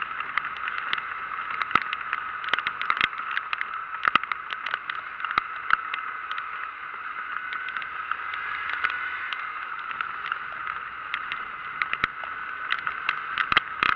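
Rain striking the microphone as a scatter of sharp irregular taps, over a steady rush of wind and road noise while riding through a downpour.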